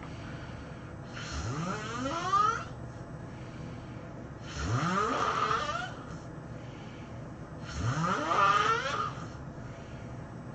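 A person snoring: three long snores about three seconds apart, each rising in pitch as it goes.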